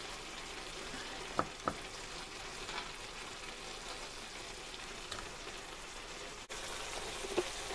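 Beef mince and onion filling sizzling steadily in a frying pan, with two short clicks of a metal spoon against the muffin tin about a second and a half in.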